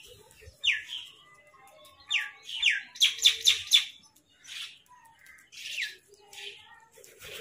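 Birds calling: short, high chirps, several sliding sharply down in pitch, with a quick run of four notes about three seconds in and softer chirps scattered between.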